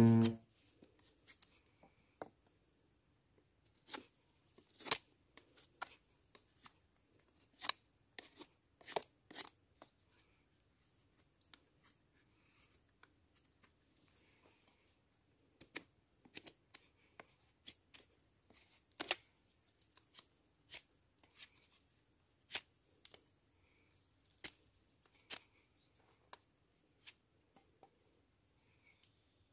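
Knife carving wood for a spoon: short, sharp cutting strokes at an irregular pace, with a quieter spell of a few seconds near the middle.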